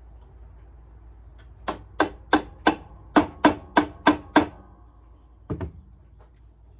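Hammer tapping on the metal pin of a small tube cutter to drive it out: about nine sharp taps at roughly three a second, then two lighter taps.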